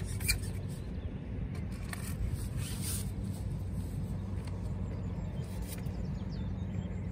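Light clicks and scrapes of a carbon fishing pole being handled and slid over its roller, the sharpest right at the start and a few more about two to three seconds in, over a steady low rumble with a faint hum.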